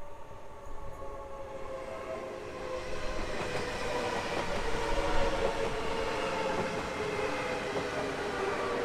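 SL X60B electric commuter train approaching, its traction motors whining in several tones that drift slowly lower over the rumble of the train. It grows louder from about two seconds in.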